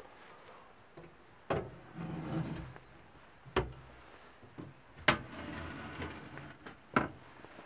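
Hinged glass covers over a caravan's gas hob and stainless-steel sink being lifted open by hand: four sharp knocks as the lids are handled and set back, with rustling in between.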